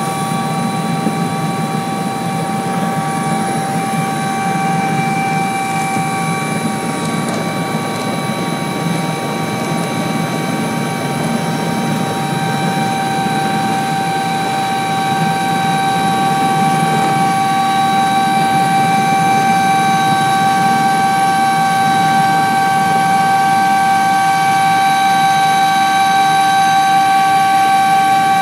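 Helicopter turbine engines and rotor heard from on board during takeoff: a steady whine of several high tones over a low rotor rumble. It grows somewhat louder over the second half as the helicopter lifts off and climbs away.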